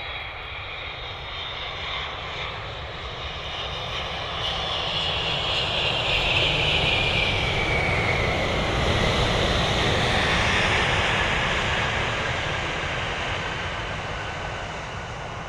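Jet airliner passing close by, its engine noise swelling to a peak in the middle and fading away, with a high engine whine that falls in pitch as it goes past.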